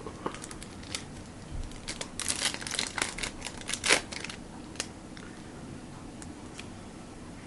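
Trading card pack wrapper crinkling and cards being handled, with a dense run of sharp crackles about two to four seconds in and scattered clicks around it.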